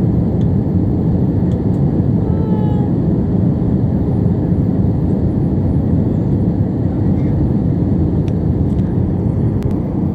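Airbus A320 cabin noise heard from a window seat over the wing during descent: a steady, deep drone of engine and rushing air that holds an even level throughout.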